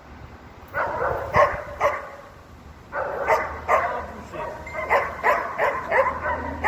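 Dog barking repeatedly in short, sharp barks. A few come about a second in, then a faster string follows after a short pause.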